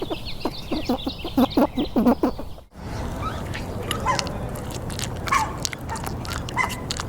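Chickens clucking in a quick run of short calls, with many high peeping calls over them. About two-thirds of a second before the halfway point the sound cuts off suddenly, followed by scattered clicks and scrapes and a few short chirps.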